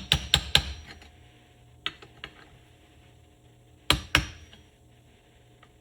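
Sharp metallic clicks and clanks of hand tools working on a motorcycle's clutch parts: a quick run of four at the start, one about two seconds in, then two more close together about four seconds in.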